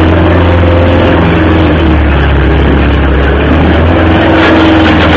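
Loud, steady machine drone with a strong low hum.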